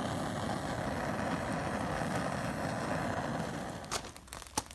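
Flames burning with a steady rushing noise and some crackle, fading and breaking up near the end. It is typical of an oil fire flaring.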